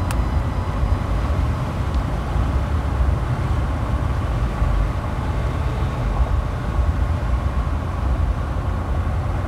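Road noise inside a moving car: a steady low rumble of tyres and engine while driving.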